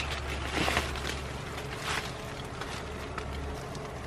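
Crackly rustling of leafy bauhinia twigs and dry leaf litter as blossoms are picked by hand, with louder rustles about half a second in and near two seconds, over a steady low rumble.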